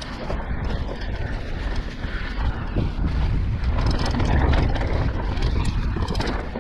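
Mountain bike riding fast down a dirt forest trail, heard from a camera mounted on the bike or rider: wind rumbling on the microphone, tyres rolling over the dirt, and the bike rattling and clicking over bumps, louder in the middle of the stretch.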